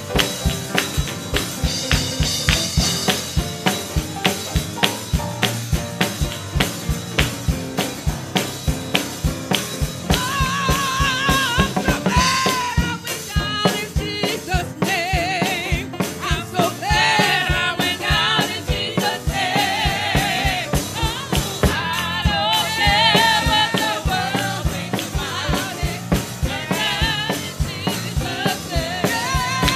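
Live church praise music: a drum kit keeps a steady beat under the band, and women singers come in strongly about ten seconds in, with wavering sustained notes.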